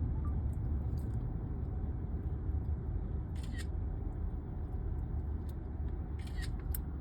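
Steady low rumble of a car driving, heard from inside the car, with a couple of faint clicks.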